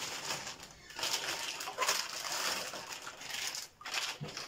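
Hands working frozen chicken legs in a plastic tub of water: irregular splashing, clacking and rustling.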